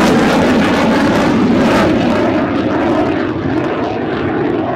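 Loud jet noise from an F-16 fighter flying away. The hiss falls away after about two and a half seconds, and the sound eases as the jet recedes.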